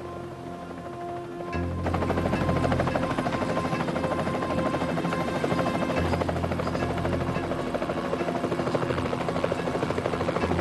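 Helicopter rotors and engine running close by. They come in loud about two seconds in, with a rapid, even blade chop. A music score plays underneath.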